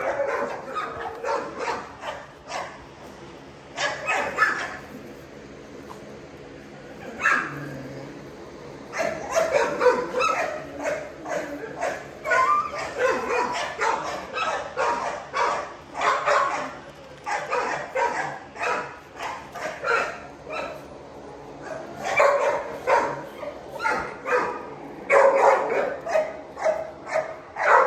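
Several young American bully puppies yipping and barking in quick short bursts as they play-fight, with a lull of a couple of seconds about five seconds in.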